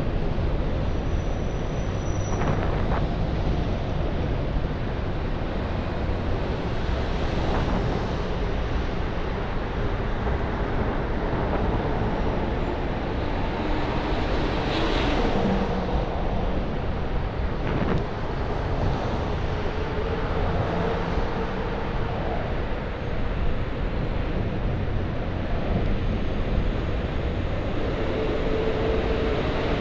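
Steady rush of wind over the microphone of a camera riding on a moving bicycle, mixed with the drone of motor traffic on the roadway alongside. A few faint hums come and go.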